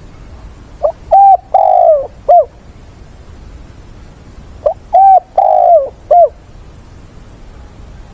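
Spotted dove cooing: two calls a few seconds apart, each a short lead-in note, a quick coo, a long falling coo and a short final coo.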